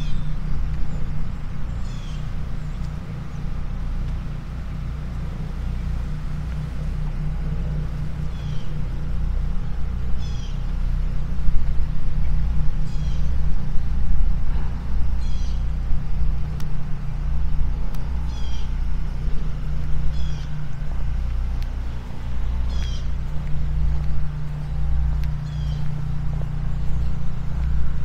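A steady low motor hum runs throughout. Over it, a short high chirping call repeats about every two to three seconds, typical of a bird.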